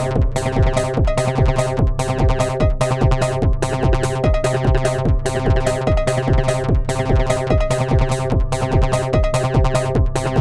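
Electronic music played live on an Elektron Syntakt drum machine: a steady, even drum-machine beat under a sustained bass tone and a repeating pattern of synth notes.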